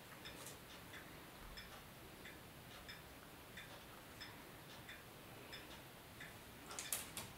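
Wall clock ticking faintly and steadily in a quiet kitchen, with a short burst of louder clicks near the end.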